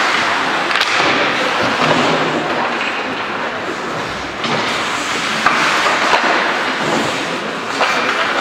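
Ice hockey play in a rink: skates scraping the ice, with a few sharp knocks of sticks, puck or boards.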